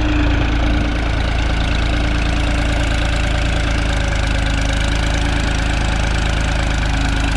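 New Holland 3630 TX Plus tractor's three-cylinder diesel engine running steadily under load while pulling a disc harrow. The throttle is set at 1700 rpm, and the engine is pulled down to about 1500 rpm.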